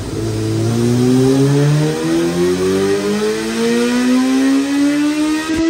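2005 Yamaha YZF-R6 inline-four, with Lextek headers and silencer, under load on a rolling-road dyno. The revs climb slowly and steadily through a single-gear dyno pull.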